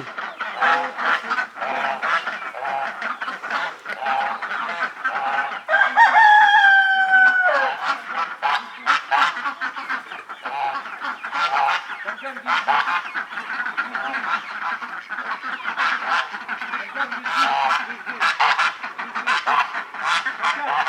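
Mixed farmyard flock of geese, ducks and chickens calling all at once, a steady din of honks, quacks and clucks. About six seconds in, a rooster crows once, a long call that sinks slightly in pitch.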